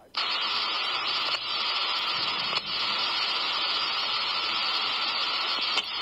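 Radio static from an amateur-radio scanner feed: a loud hiss that cuts in suddenly and holds steady for about six seconds, with a faint steady tone running through it.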